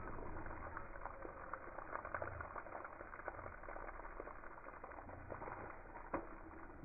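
Water from a garden hose spraying and spattering onto a dog and wet brick paving, a continuous crackling patter, with a single sharp click about six seconds in.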